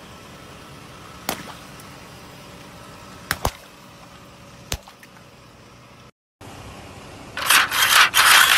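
Car idling with a few sharp cracks, then, after a cut, a loud crackling crunch lasting about a second near the end: something brittle being crushed under a car tyre.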